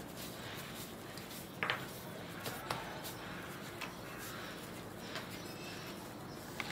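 Kitchen worktop handling sounds during dough shaping: a few light clicks and taps of utensils against a steady room hiss, the sharpest about one and a half seconds in.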